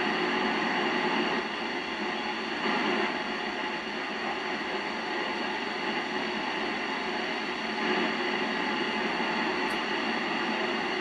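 Steady hiss of receiver noise from a Yaesu FT-847 transceiver's speaker, tuned to the ISS downlink while listening for a reply, with no station coming through.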